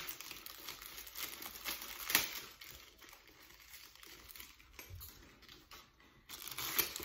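Thin clear plastic wrapping crinkling and rustling as it is pulled off a handbag's strap by hand, in irregular crackles. It is quieter for a few seconds in the middle and picks up again near the end.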